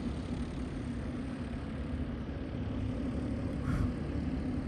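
Hovercraft engine and fan running with a steady low drone.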